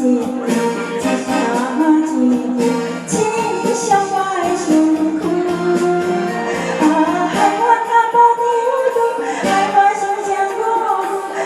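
Woman singing a Taiwanese Hokkien pop ballad in a hoarse, strained voice over a karaoke backing track with a steady beat.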